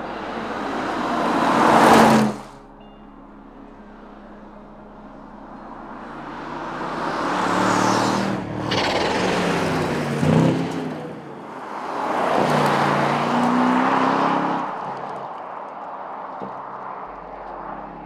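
The twin-turbo 4.0-litre V8 of an Aston Martin DBX 707 SUV driving past several times, its engine note and tyre noise swelling and fading with each pass. The first pass cuts off abruptly about two seconds in.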